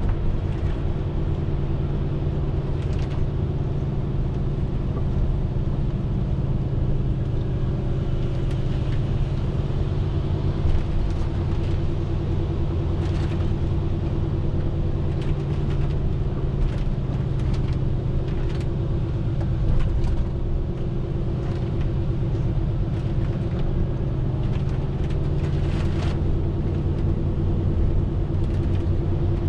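Scania R450 lorry's 13-litre inline-six diesel engine running steadily while driving, with a constant low drone.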